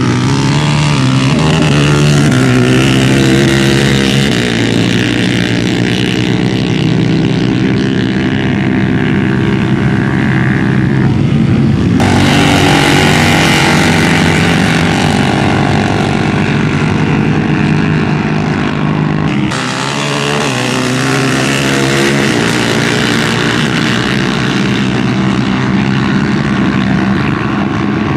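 Quad and side-by-side UTV engines running loud and close, a steady engine drone that changes abruptly in tone twice.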